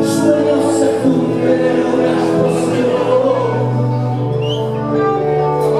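Rock band playing live, held chords ringing under a singer's voice, with cymbal splashes.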